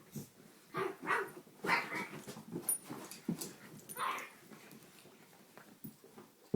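Dogs playing, making a run of short vocal sounds over the first four seconds or so, then quieter.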